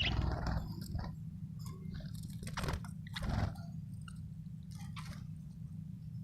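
Budgerigar chirping and clicking in short, scattered notes over a steady low hum.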